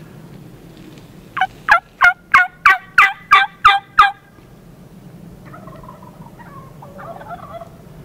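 Turkey yelping: a series of about nine loud notes, roughly three a second, each dropping in pitch, stopping sharply after about three seconds. A couple of seconds later comes fainter, distant turkey gobbling.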